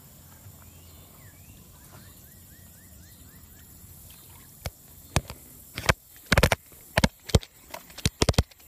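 Quiet outdoor river ambience with a quick run of faint bird chirps about two seconds in, then a series of about a dozen sharp knocks and bumps in the second half, coming faster toward the end.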